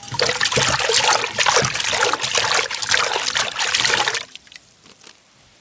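Water pouring and splashing steadily for about four seconds, then stopping abruptly.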